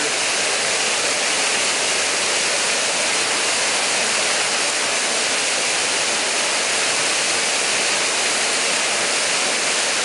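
Waterfall pouring onto rocks and into a pool, a steady, even rush of water.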